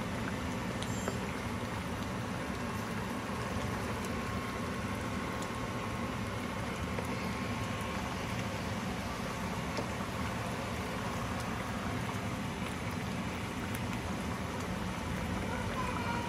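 A meat stew simmering in a wide pan, a steady bubbling hiss, while a wooden spatula stirs through it.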